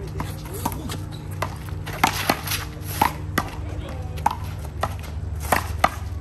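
A rubber handball rally in play: about a dozen sharp slaps at uneven intervals as the ball is struck by gloved hands and smacks off the wall and the court.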